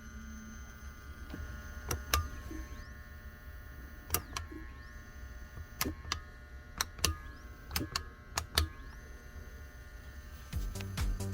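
Small geared stepper motor with a spur-gear reducer running, a steady whine at several pitches over a low hum, broken by about ten sharp clicks. Rhythmic music comes in near the end.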